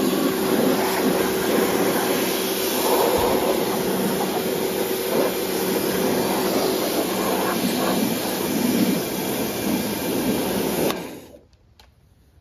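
Pressure washer running and spraying water onto a lawn mower deck: a steady hiss that cuts off suddenly about eleven seconds in as the spray stops.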